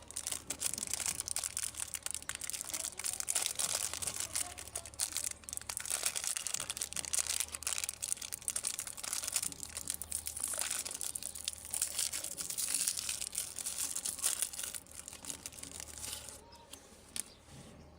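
Plastic candy packaging being crinkled and crushed by hand: a dense, continuous run of crackles that thins out near the end.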